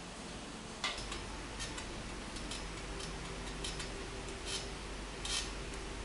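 Irregular light metallic clicks and taps, about a dozen, from hands working a part at a bicycle's rear wheel, the sharpest about a second in and another near the end, over a low steady hum.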